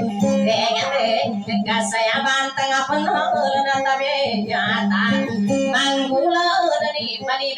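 Maranao dayunday music: a high voice sings a line full of pitch bends over a kutiyapi, the two-stringed boat lute, plucked in a steady accompaniment.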